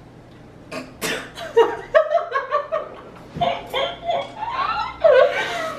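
Young women laughing and giggling in short bursts, starting about a second in.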